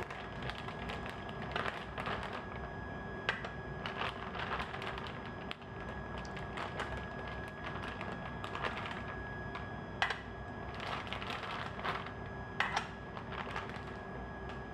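Light, irregular clicks and taps of plastic Petri dishes being handled and set down on a lab bench, over a steady equipment hum with a faint high whine.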